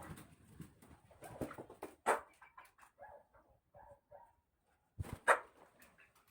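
Broiler chickens making short, soft calls, from a flock sick with an illness that has them wheezing and coughing. A few sharp knocks cut in, the loudest a little after five seconds in.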